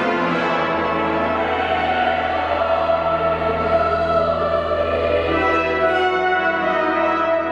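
Church choir singing in harmony, over a held low note.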